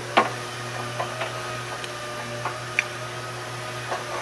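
Plastic wiring-harness connectors clicking and tapping as they are handled in a forklift engine bay: one sharp click just after the start, then a handful of lighter clicks, over a steady hum.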